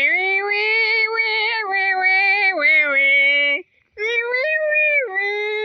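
A high voice making silly drawn-out vocal noises: two long held, wavering sung tones with a short break between them.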